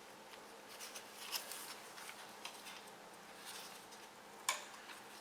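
Light clicks and clinks of small metal parts handled by hand: a return-line bolt and horseshoe washers being fitted on a 12-valve Cummins injector. A sharper click comes near the end.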